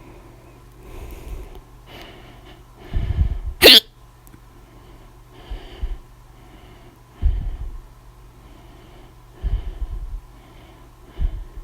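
A person hiccupping loudly and repeatedly: about six short hiccups at irregular gaps of one to two seconds. The sharpest and loudest comes a little under four seconds in, over a steady low hum.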